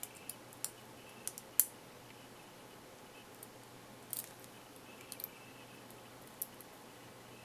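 Sharp little metallic clicks of a Sparrows hook pick working the pins inside a padlock under a tension wrench. The clicks are scattered and irregular, a couple in the first two seconds, the loudest about a second and a half in, then a few more at intervals of about a second.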